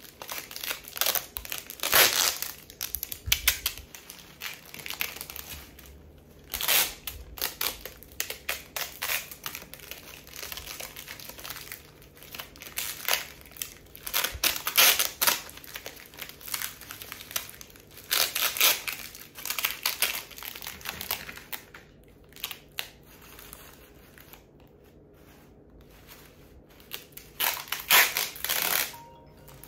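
Crinkling and rustling in irregular bursts as artificial rose stems are bundled and taped together into a bouquet.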